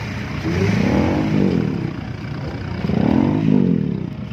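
A modified car's engine being revved twice through its exhaust, each rev rising and falling in pitch, about a second in and again about three seconds in.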